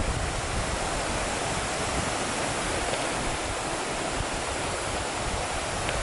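Shallow rocky stream running over boulders and small riffles: a steady, even rush of water.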